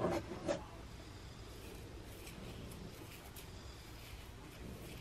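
Fingernails scratching a dandruff-flaked scalp through short natural hair: faint, scattered scratching strokes, after a short louder burst right at the start.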